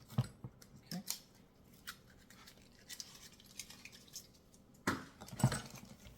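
Packing tape being peeled and scraped off a part of a bike repair stand: intermittent scratchy tearing and rubbing with light knocks, loudest about five seconds in.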